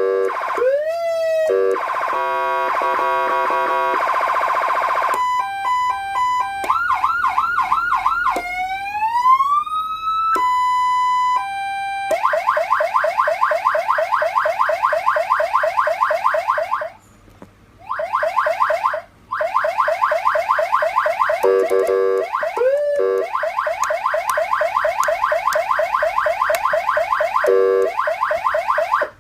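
Electronic warning siren, 12/24 V DC, cycling through its tone patterns: rising wail sweeps, stepped alternating beeps and steady tones, then a long, fast, repeating yelp warble, broken by two short gaps in the middle.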